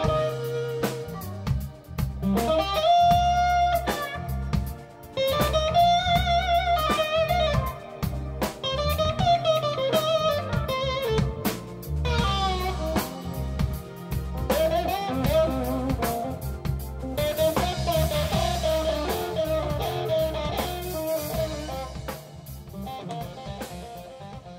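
Background music: a blues-style track with a lead electric guitar playing wavering, bent notes over bass and drums, fading out near the end.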